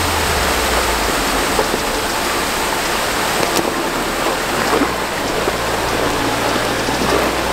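Steady rush of a small waterfall and creek, with a Jeep Wrangler's engine running low underneath as it crawls through the rocky crossing, and a few small knocks from the rocks.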